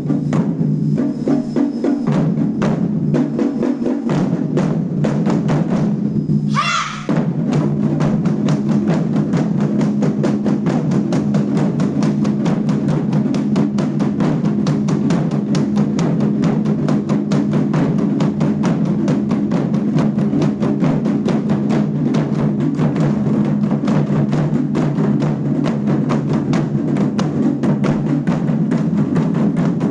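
A school drum ensemble playing loud, dense, fast drumming, recorded live on a phone. About six and a half seconds in, a short sliding high tone cuts across the drums.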